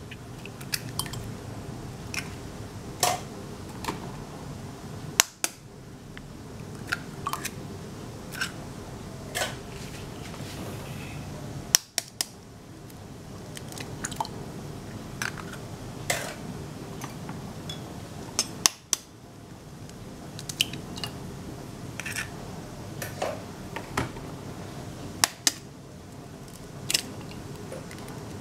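Chicken eggs being cracked one after another into a ceramic bowl: irregular sharp taps and cracks of eggshell, some with a brief ring, over a steady low hum.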